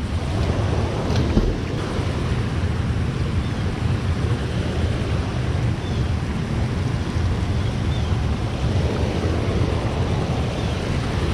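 Steady rushing of water pouring over a small waterfall, a constant noise with a deep low rumble, mixed with wind buffeting the microphone.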